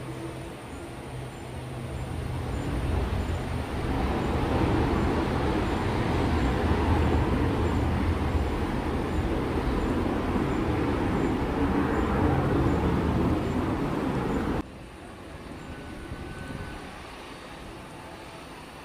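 Jet noise from a Sukhoi Su-30 fighter's twin turbofan engines at high power as it passes low and climbs away. The noise swells over the first few seconds, holds loud, then cuts off abruptly about three-quarters of the way through. A much fainter, distant jet sound follows.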